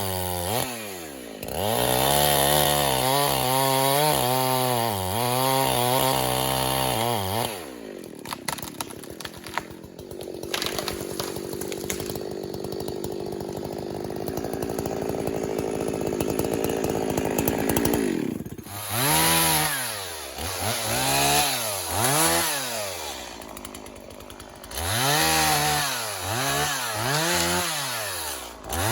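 Two-stroke chainsaw running, its pitch swinging up and down at first, then holding steadier for about ten seconds in the middle, then revving up and dropping back repeatedly, about once every second and a half, near the end.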